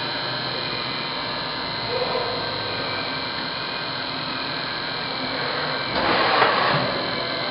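Fadal VMC4020 vertical machining center powered up and running: a steady machine hum with several constant tones. About six seconds in there is a short burst of hissing noise lasting about a second.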